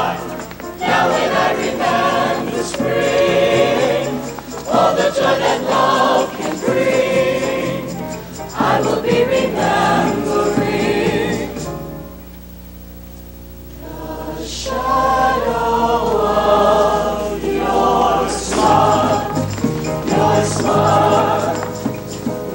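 Mixed-voice high-school show choir singing. About twelve seconds in, it drops to a soft held chord for a couple of seconds, then swells back to full voice.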